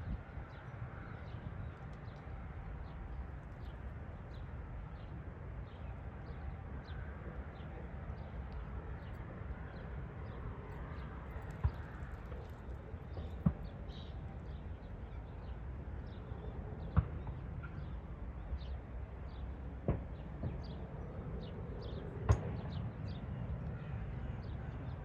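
Light rain on a shoreline: many small drop ticks over a steady low rumble of surf. About five louder, sharp drip-like taps stand out in the second half.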